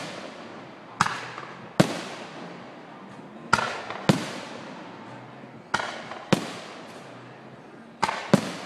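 Aerial firework shells bursting overhead: eight sharp bangs coming in pairs about every two seconds, each trailing off in a short fading echo.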